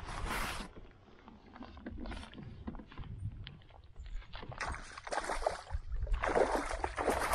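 Water splashing in several bursts as a hooked trout thrashes at the surface while it is fought and landed; the splashes are strongest in the last couple of seconds.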